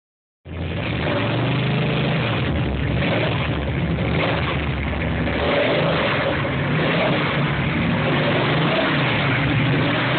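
Chevy small-block V8 stroker (383/388 cubic inch) running steadily at idle with a deep rumble.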